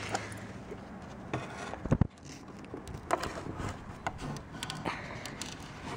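Fingers rubbing and pressing a registration sticker onto a licence plate, with scattered small clicks and one louder knock about two seconds in.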